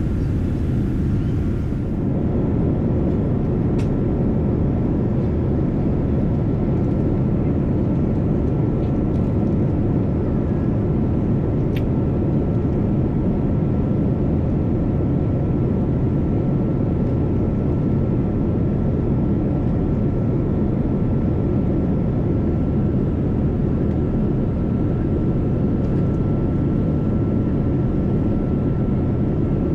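Cabin noise inside a Boeing 787 airliner: a steady low rumble of engines and airflow with a thin steady whine above it.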